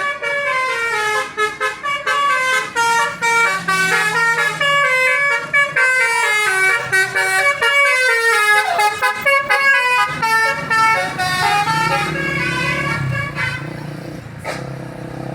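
Telolet horn on an Indonesian tour bus: a multi-trumpet musical air horn playing a quick, stepping tune of short notes. About ten seconds in the tune thins out and the bus engine running underneath comes to the front.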